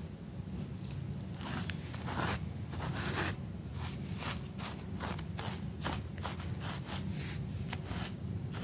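Stiff-bristled scrub brush scrubbing a wet, foamy rug in quick back-and-forth strokes, about two or three a second, with a wet, crunchy scrape to each stroke.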